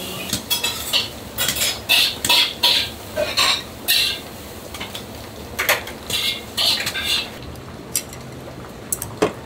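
Ramen kitchen work: irregular clinks and knocks of metal utensils against ceramic bowls and pans as noodles are drained and bowls are filled, many short strikes at an uneven pace.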